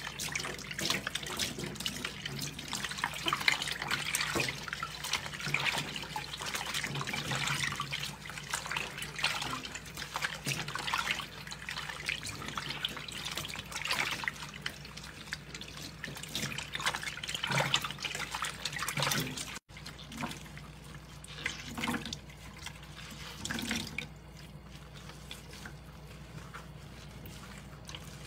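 Tap water running and splashing into a stainless steel sink. It cuts off abruptly about two-thirds through, then continues more quietly over a faint steady low hum.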